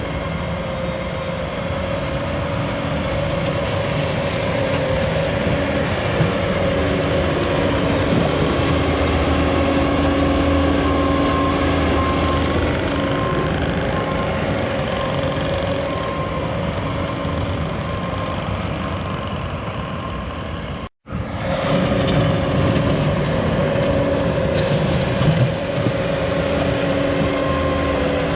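An engine running steadily at constant speed, with a steady whine over a low rumble. The sound drops out for a moment about three-quarters of the way through.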